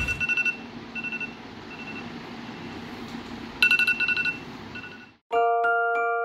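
Smartphone alarm beeping in short repeated tones, louder about three and a half seconds in. About five seconds in it cuts off and glockenspiel-like background music starts.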